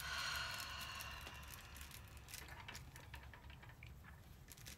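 Hands handling a diamond-painting canvas: a rustle and scrape of the canvas and its plastic cover film as it is pressed and smoothed, fading after a second or so, then a few faint clicks and taps as the drill pen and tray are handled, over a low steady hum.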